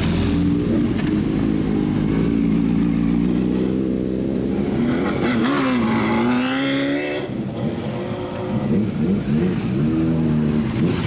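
Several motorcycles with aftermarket exhausts running close by, their engines revving as the bikes pull away one after another. The sharpest rev comes about six seconds in, as a red Kawasaki four-cylinder rides past, and more rising and falling revs follow near the end.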